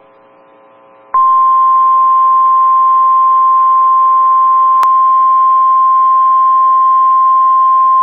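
NOAA Weather Radio 1050 Hz warning alarm tone, which alerts receivers that a warning broadcast is about to follow. It is a single loud steady tone that starts abruptly about a second in, over a light hiss of radio static, with one sharp click near the middle.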